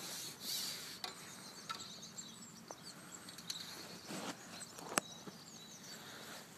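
Faint handling noises as a small roach is unhooked by hand: soft rustles and a few light clicks, one sharper click about five seconds in, over a faint outdoor hiss with high chirps in the background.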